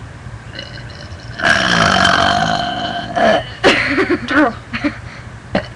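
A girl's long, loud burp lasting about a second and a half, starting about a second and a half in.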